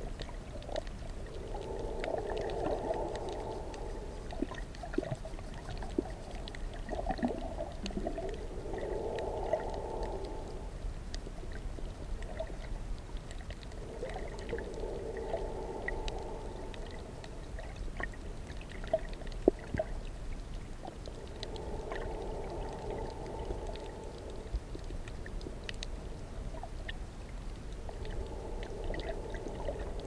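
Underwater sound: a muffled bubbling burst of about two seconds comes every six or seven seconds, in the rhythm of a diver's exhaled air bubbles. It sits over a steady low rumble, with scattered faint clicks.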